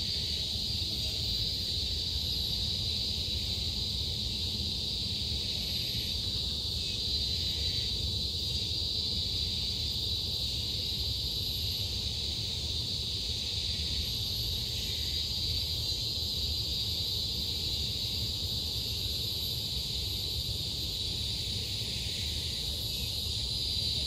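Insects droning steadily in one high, unchanging pitch, over a low steady rumble.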